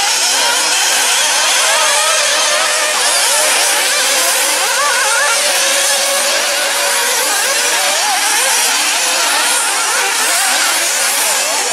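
Several 1/8-scale nitro off-road RC buggies' small two-stroke glow engines buzzing at high pitch together, each rising and falling as the throttles open and close, the whines overlapping and wavering.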